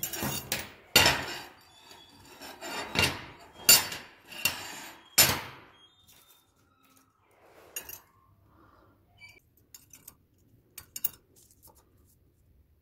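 Flat steel bars slid and set down on a hard workbench top: a run of loud metal scrapes and clanks over about the first six seconds, then a few faint clicks and taps of handling.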